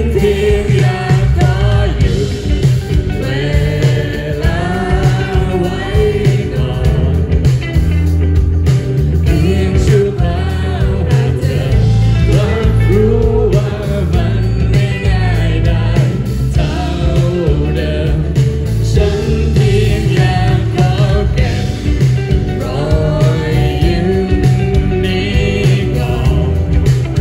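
Live band performance: a woman sings lead into a microphone over electric guitars, bass guitar, keyboard and drums.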